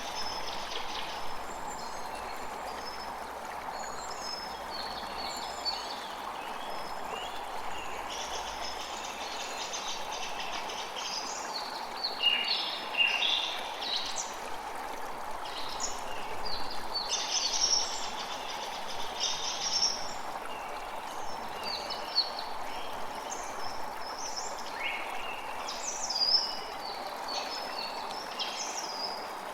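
Many small birds chirping and calling in quick short phrases over a steady rush of running water.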